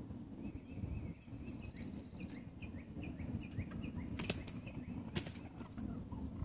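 Wild turkey jakes fighting, with two sharp wing-beat slaps about four and five seconds in. A bird's quick repeated high chirps run through the first four seconds, over a steady low rumble.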